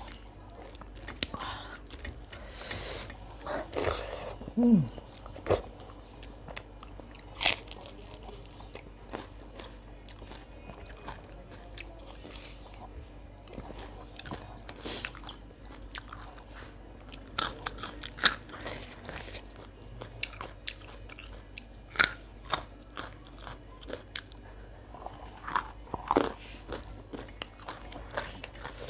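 A person eating a meal: crunchy bites and chewing, with irregular sharp clicks and smacks scattered throughout.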